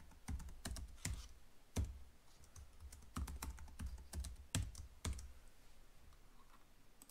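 Typing on a computer keyboard: an uneven run of keystrokes while a password is entered, stopping about five seconds in.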